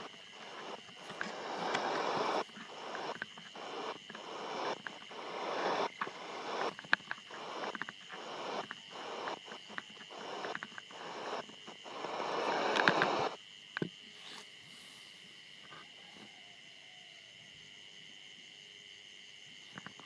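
Shortwave receiver's speaker output while tuning across the 31 metre band: choppy bursts of static and signal fragments, cut by many brief mutes and clicks as the DSP radio steps from frequency to frequency. About 13 seconds in the bursts stop, leaving a faint steady hiss with a thin high whine.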